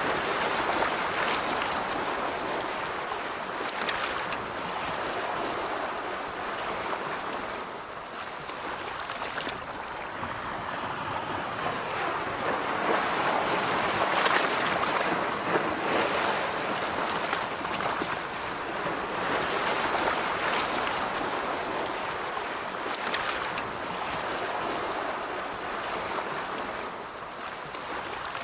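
Sea surf washing onto a beach, the wash of the waves swelling and easing over several seconds, loudest about halfway through, with a few brief ticks mixed in.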